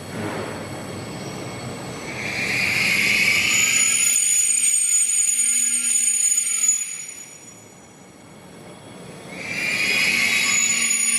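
SBB RABe 502 FV-Dosto (Bombardier Twindexx) double-deck train braking on arrival, its brakes squealing in several high steady tones. The squeal swells a couple of seconds in, dies away for a few seconds, and comes back loudly near the end.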